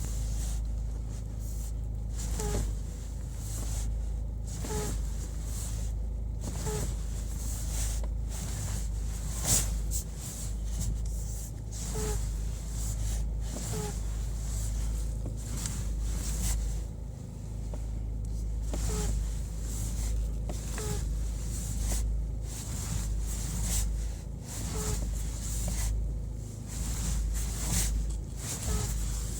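Peugeot 308 (T9) steering giving a short pitched noise that repeats every two seconds or so as the wheel is turned hard, over a low steady hum of the idling car. The owner suspects the power-steering pump or the electric servo.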